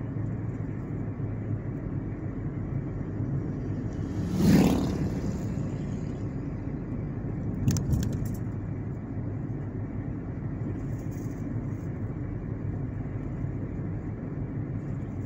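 Steady engine and tyre noise inside a moving car's cabin. About four and a half seconds in, an oncoming vehicle passes with a sound that swells and fades. About three seconds later come a few sharp clicks.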